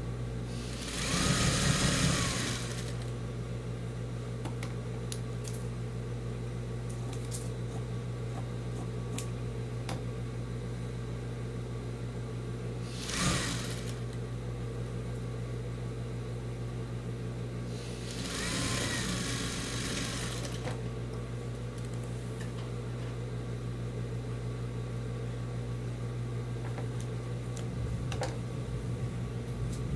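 Sewing machine running as denim strips are stitched onto a patchwork rug, with a steady low motor hum throughout. Three louder, brief bursts of noise stand out: about a second in, near the middle, and around two-thirds of the way through.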